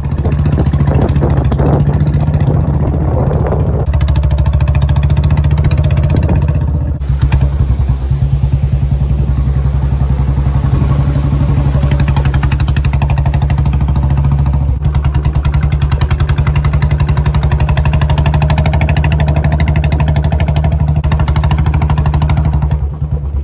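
Motorcycle engine running steadily under way on a rough gravel track, recorded from the rider's seat, with a couple of brief dips in the engine note.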